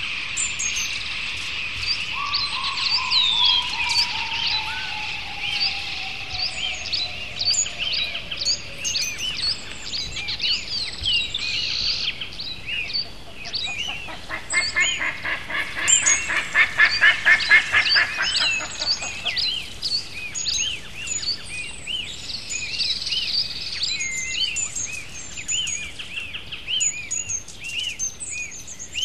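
Several wild birds singing and chirping at once, short whistled notes overlapping throughout, over a steady high tone that fades out about two-thirds of the way in. A few seconds in, a long series of notes falls slowly in pitch, and a little past the middle a fast, rattling pulsed call is the loudest sound for about five seconds.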